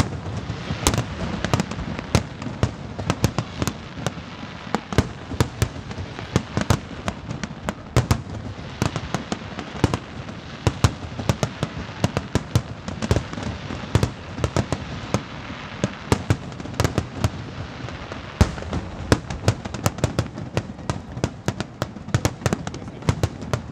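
Aerial firework shells bursting one after another in a continuous barrage: a few sharp bangs each second, irregularly spaced, over a steady low rumble of overlapping reports.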